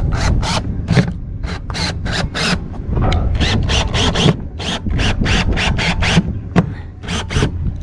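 A screw being turned by hand into the assist rail's mounting plate on an RV door frame: a run of short scraping strokes, about two to three a second, with brief pauses.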